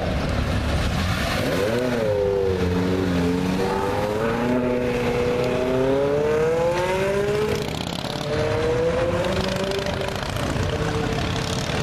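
Ferrari 360 Spider's 3.6-litre V8 accelerating away, its pitch climbing over several seconds. Near two-thirds of the way in the pitch drops briefly, then climbs again and levels off.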